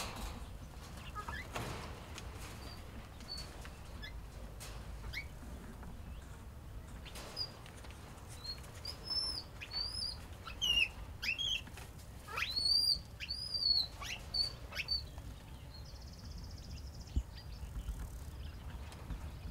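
Short, high-pitched animal chirps, some sweeping sharply upward, coming in a quick run in the middle over a quiet outdoor background.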